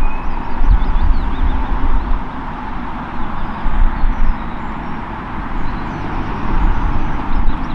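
Boeing 787-8 jet engines running at low thrust as the airliner taxis and turns to line up on the runway, a steady hiss with an uneven low rumble underneath. Faint bird chirps sound over it.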